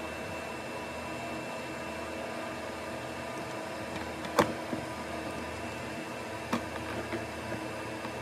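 Steady background hiss and hum, with a few sharp clicks of a soldering iron tip and a screwdriver against the metal wire mesh as it is melted into the plastic bumper. The loudest click comes a little past halfway, another about two seconds later, then a few smaller ones.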